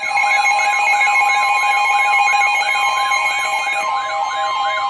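Emergency weather alert tones start suddenly and loudly. A steady high tone, the weather radio's warning alarm, is layered with a warbling siren-like tone that rises and falls about three times a second and rapid alternating beeps. The tones signal an urgent warning about to be read.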